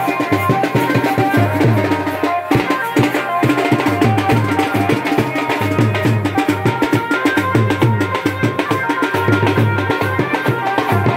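Garhwali band baja wedding music: drums keep a steady dance beat under a sustained, droning melody line.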